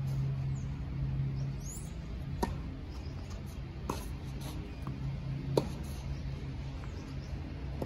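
Tennis ball struck by rackets in a rally: three sharp pops about a second and a half apart, the loudest about five and a half seconds in, with fainter ticks between them, over a steady low hum.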